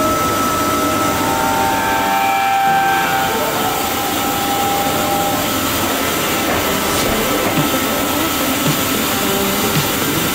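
Heckert CWK 1600 horizontal machining centre running: a steady mechanical noise with a constant high whine, and whining drive tones that shift in pitch in the first half as the spindle head moves. A few light knocks come near the end.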